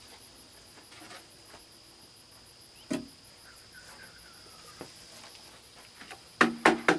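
Insects chirping steadily in a fast, even pulse. A single knock comes about three seconds in. Near the end there is a quick run of loud knocks as a plywood sheet is lifted and stood on edge against wooden sawhorses.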